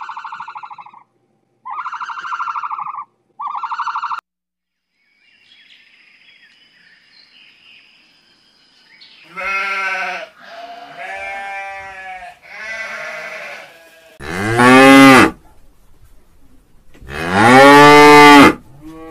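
Three short pitched calls, then sheep bleating several times in wavering calls, then two long, loud cow moos, the loudest sounds here.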